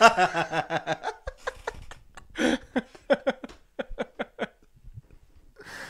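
Two men laughing: a hard burst at first, then a run of short, breathy laughs, about four or five a second, that trails off near the end.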